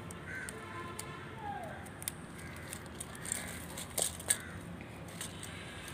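Hands handling threaded cardamom pods and a jute rope: quiet rustling with two sharp clicks about four seconds in.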